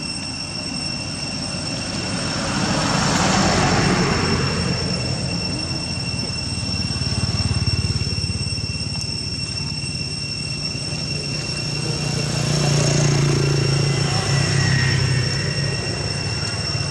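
Outdoor ambience: a steady high-pitched insect drone over a low rumble that swells and fades twice, about three seconds in and again near thirteen seconds.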